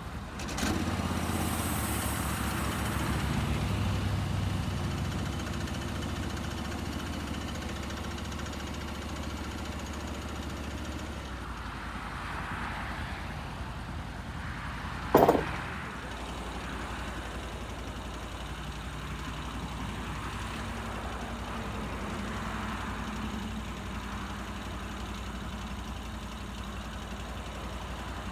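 Portable bandsaw mill's Honda 690cc engine running steadily. It gets louder just after the start and changes in tone about eleven seconds in. A single loud clunk comes about halfway through.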